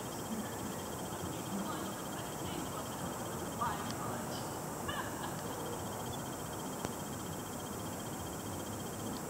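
Outdoor evening ambience picked up at full microphone gain: a steady hiss, with a faint high trill pulsing evenly through it and a few short distant calls, two of them about a second apart just past the middle.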